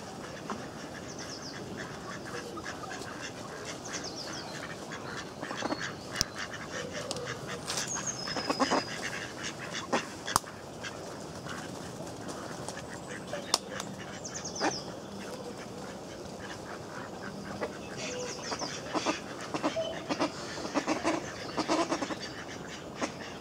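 Mallard ducks quacking in short clusters, a few calls about a third of the way in and a longer run of them near the end.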